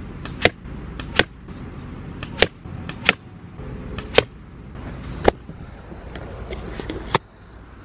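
A compound bow being shot at a foam block target: six sharp, short cracks of the string's release and the arrows striking, spaced about a second apart over the first five seconds.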